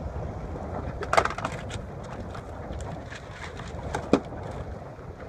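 Steady wind and water noise around a boat under way, with two sharp knocks about a second in and near four seconds in, the second the loudest, and a few fainter clicks.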